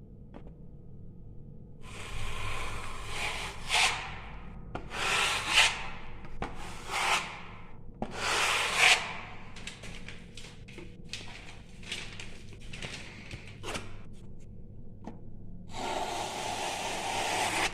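Hand work on a filled wall: a series of long rubbing strokes, then a run of short quick scrapes, then one long steady stroke near the end.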